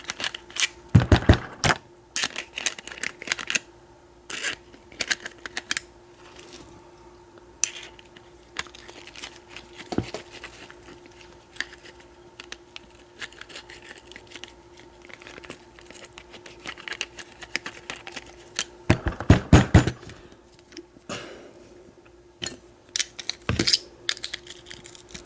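Small Phillips screwdriver working a grimy screw out of a rekeyable padlock: irregular gritty scraping and small metal clicks, with louder bursts of handling about a second in and again near the end. The grit comes from dirt and old sprayed lubricant in the lock.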